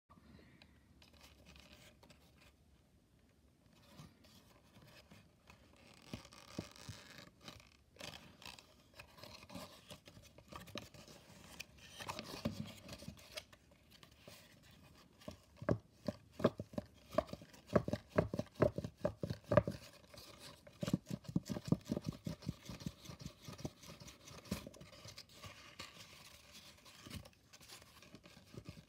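Folded paper origami brick-wall tessellation being flexed and pressed by hand, the creased paper crinkling and crackling in many small irregular clicks. The crackles are sparse at first and come thickest and loudest in the middle stretch.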